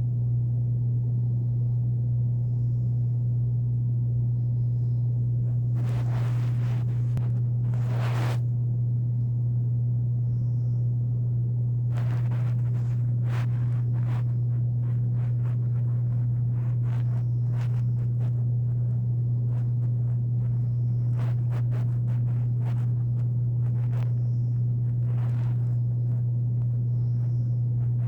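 Room air conditioner running with a steady low hum. A couple of short hissing noises come about six and eight seconds in, and scattered faint clicks follow later; any snoring is lost under the air conditioner.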